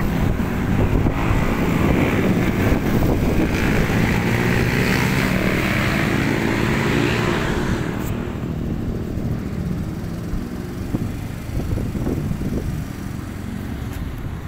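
Small motor scooter running at low speed while being ridden, its engine mixed with a rushing noise that eases off about eight seconds in.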